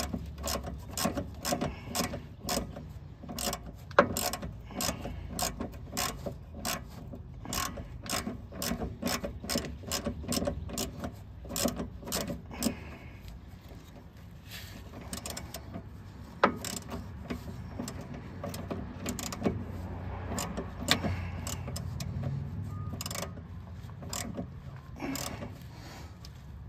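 Hand ratchet clicking in quick strokes as nuts on the steering linkage are tightened, about three clicks a second at first, thinning out to scattered clicks after about 13 seconds.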